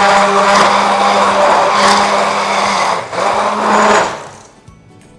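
Hand-held immersion blender running in a tall plastic beaker, churning soaked buckwheat and water into a thick, smooth dough batter. The motor cuts out briefly about three seconds in, starts again, and stops about a second later.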